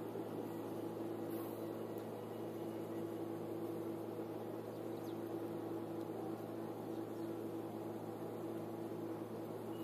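A motor running steadily, a constant hum with one held tone and no changes.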